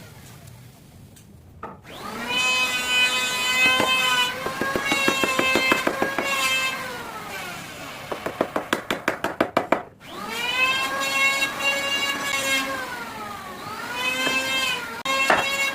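A high-speed electric power-tool motor whining: it spins up, runs at a steady pitch and winds down, twice. Between the two runs comes a quick series of sharp clicks that speeds up.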